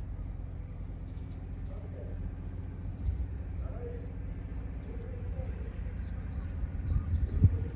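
A steady low rumble, rising near the end, with faint bird calls over it, including a soft cooing like a pigeon's.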